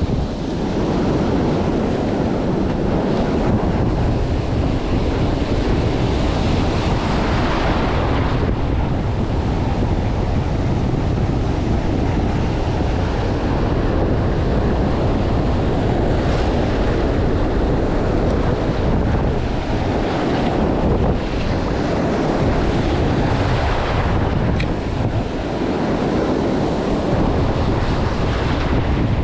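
Ocean surf breaking and washing, with steady wind buffeting the microphone.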